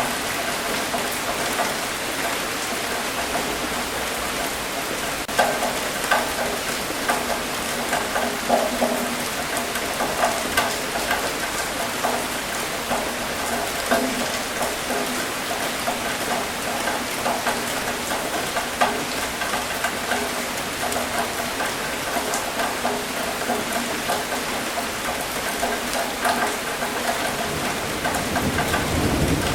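Steady rain falling, with a continuous hiss and many individual drops spattering. A low rumble comes in near the end.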